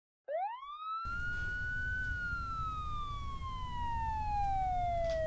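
A siren wailing: a single tone that sweeps up quickly just after the start, peaks about two seconds in, then slowly falls in pitch, over a low rumble that comes in about a second in.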